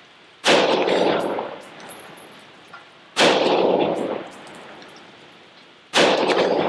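Three rifle shots from a Remington 7615 pump-action rifle, about two and a half seconds apart. Each shot rings out and dies away slowly in the metal-walled building.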